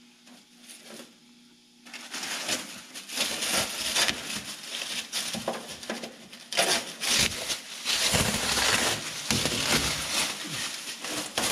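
Masking material and tape being pulled off a freshly painted car and crumpled, an irregular rustling and crinkling that starts about two seconds in.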